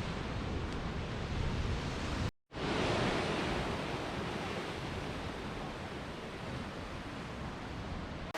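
Ocean surf and wind rushing steadily, cut off by a brief gap of silence about two seconds in, then swelling back up.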